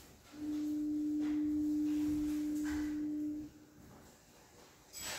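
A single steady pure tone at one fairly low pitch, held for about three seconds and then cut off.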